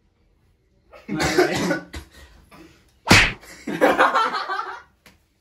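A single sharp hand slap about three seconds in, struck at a player wearing a helmet. Short breathy vocal bursts come just before and just after it.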